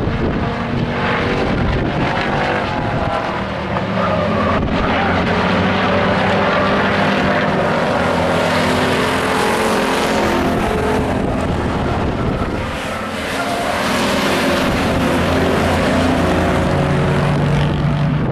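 Several stock pickup race truck engines running hard as the trucks lap the oval, their overlapping engine notes rising and falling. The sound dips briefly about two-thirds of the way through, and a strong low engine note comes in near the end.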